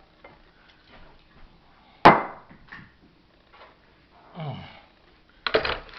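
A cast-iron Oliver typewriter being handled and moved. There is one heavy knock about two seconds in, fainter knocks and scrapes, and a clattering rattle of its mechanism near the end.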